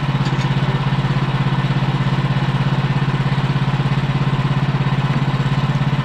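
Portable band sawmill's gasoline engine running steadily at idle, a low, even hum with a rapid regular pulse, while the blade is not cutting.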